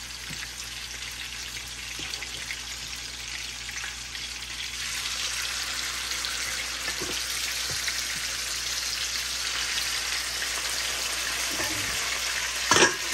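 Chicken thighs sizzling in oil in a stainless steel skillet, the frying growing louder about five seconds in. Near the end comes one sharp clank from a pan lid being picked up.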